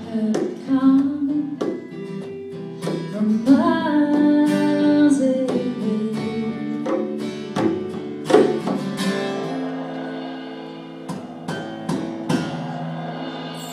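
Live acoustic band: a woman singing over strummed acoustic guitar, electric guitar and light drum and cymbal hits. The singing stops about two-thirds of the way through, and the guitars ring on, slowly getting quieter.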